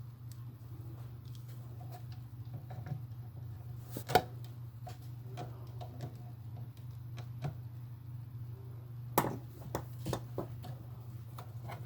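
Scattered small clicks and knocks of plastic RC car parts and screws being handled and worked by hand, with a sharper knock about four seconds in and again about nine seconds in, over a steady low hum.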